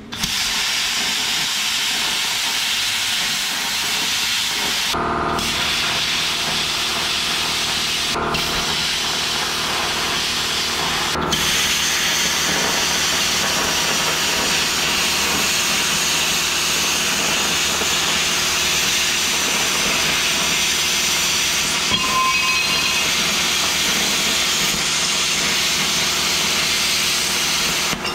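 Plasma cutter cutting through steel plate: a steady, loud hiss of the cutting arc and air, with a few momentary breaks in the first dozen seconds.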